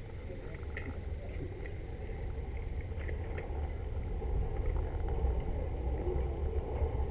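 Wind rumbling on the microphone of a camera riding on a road bicycle, with road and tyre noise underneath; it grows gradually louder.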